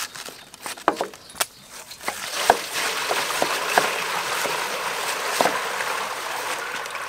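Water poured from a plastic bucket into a large steel basin, a steady splashing rush that starts about two seconds in. Knives tap several times on wooden chopping boards as cabbage is cut.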